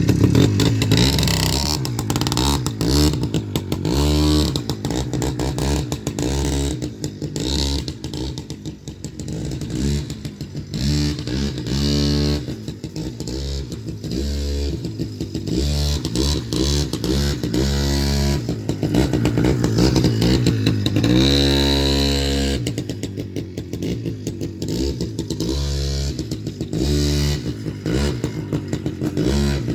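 Motorcycle engine ridden hard, revving up and easing off again and again, its pitch rising and falling with each burst of throttle.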